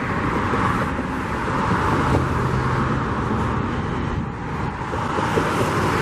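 Steady road traffic noise: a continuous wash of car tyres and engines with a low rumble beneath.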